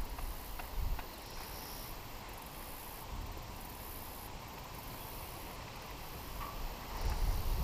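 Quiet outdoor ambience: light wind rumbling unsteadily on the microphone, with a few faint clicks in the first second and a slight swell near the end.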